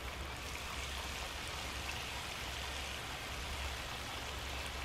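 Chunks of pork frying in oil in a skillet, a steady sizzle with a low rumble underneath.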